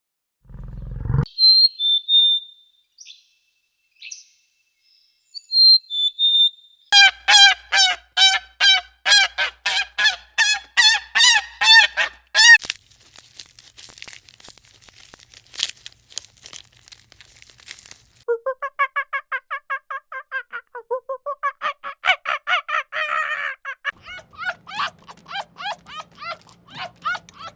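Geese honking in fast series of repeated calls, several to a second, with a few thin high calls in the first seconds.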